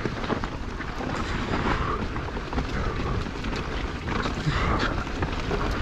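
Wind buffeting the camera microphone over an uneven low rumble, with many scattered clicks and knocks.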